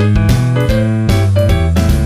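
Background music: an upbeat instrumental track with keyboard and a steady drum beat.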